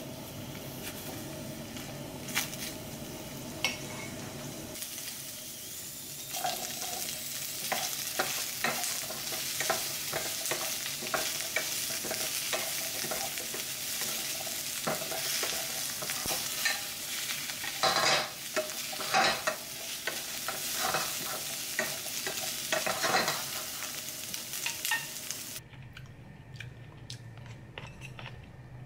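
Shrimp and asparagus sizzling in a stainless steel frying pan, stirred with chopsticks and then a wooden spatula that scrapes and knocks against the pan. The sizzling starts about five seconds in and cuts off abruptly near the end, leaving faint clicks of tableware.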